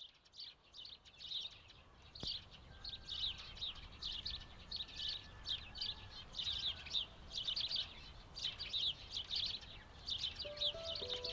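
Birds chirping: a busy, unbroken stream of short high chirps over a steady low background noise, with a few music notes coming in near the end.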